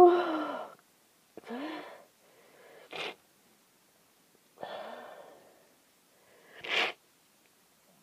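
Person with a congested head cold sneezing and trying to hold the sneezes back: five separate bursts of breath and voice. The first and loudest falls in pitch, and short sharp ones come about three seconds in and near the end.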